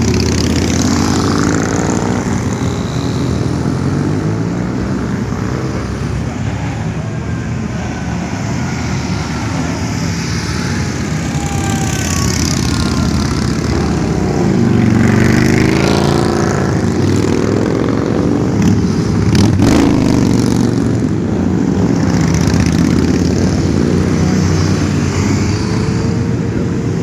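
A stream of motorcycles, mostly cruisers, riding past one after another, each engine's pitch rising and falling as it goes by. The loudest passes come about halfway and about three-quarters of the way through.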